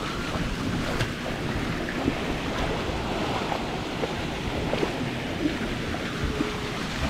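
Shallow pool water splashing as a small child crawls and kicks through it, over a steady rush of running water.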